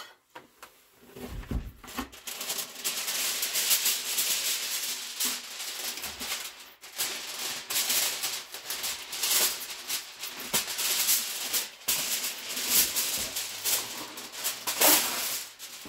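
Aluminium foil crinkling and rustling in dense, irregular crackles as it is wrapped and pressed over baked food, after a dull knock about a second and a half in.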